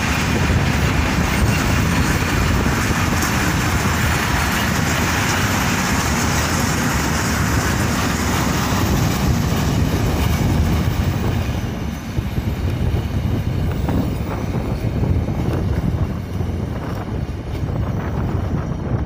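Freight train of railway tank wagons rolling past on the rails, a steady rumble of wheels on track. The sound drops about twelve seconds in as the end of the train passes and moves away.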